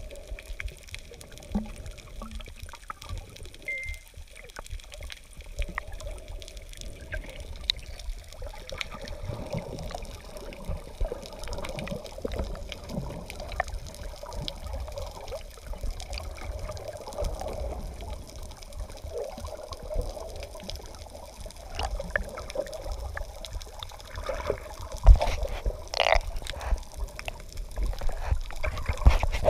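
Water heard underwater: muffled sloshing and trickling with scattered small clicks, and a louder stretch of splashing and knocks near the end.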